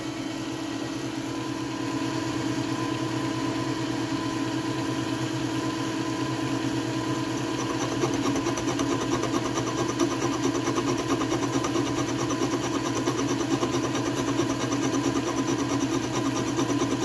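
Milling machine running with a Criterion boring head spinning in the spindle, boring out a hole in a metal plate: a steady machine hum. The cutting noise grows stronger and more rhythmic about halfway through as the boring bar works deeper into the hole.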